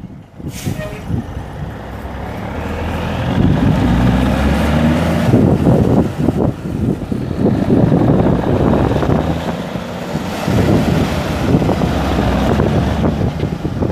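The Cummins NTC six-cylinder turbo diesel of a 1984 International Transtar dump truck running and building speed: its sound swells over the first few seconds, eases off about ten seconds in, then picks up again. Wind buffets the microphone throughout.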